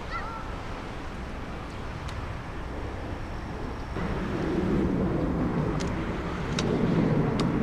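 Distant Airbus A330's twin jet engines spooling up to takeoff thrust for the takeoff roll. A low rumble rises suddenly about four seconds in and keeps growing louder.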